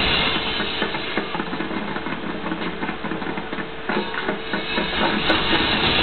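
Marching band playing, with drums beating steadily under held instrument notes.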